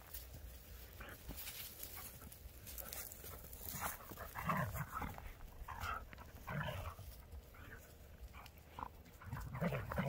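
A Keeshond and a Greyhound playing tug-of-war over a rope tug toy, with panting and short bursts of dog vocal sounds several times from about four seconds in.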